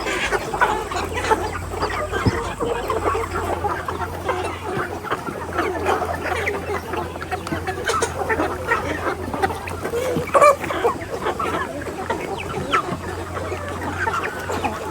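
A flock of chickens clucking and calling over one another in many short, overlapping calls, over a steady low hum.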